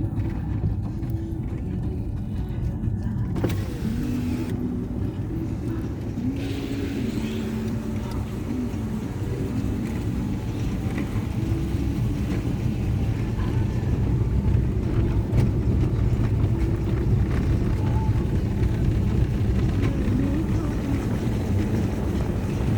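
Steady low rumble of a car driving, with faint voices or music underneath; the rumble grows a little louder about two-thirds of the way through.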